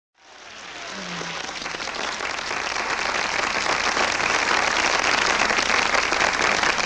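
Studio audience applauding, fading in from silence and building over the first couple of seconds to a steady level.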